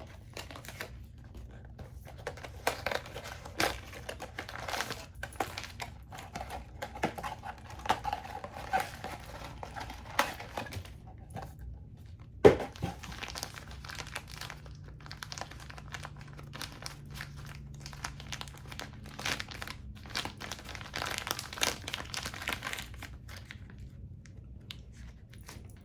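Hands unboxing a blind-box toy: packaging torn open and a plastic wrapper crinkled and rustled in irregular bursts, with one sharp snap about halfway through.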